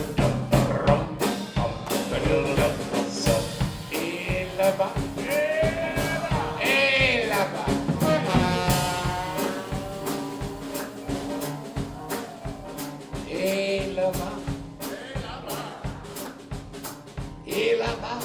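Traditional jazz band playing dance music. A drum kit keeps a steady beat under melody lines that slide in pitch.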